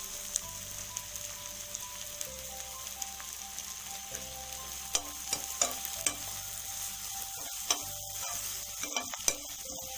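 Sliced onions and green chillies frying in hot oil in a pan, a steady sizzle, with a steel spatula stirring and clicking against the pan now and then.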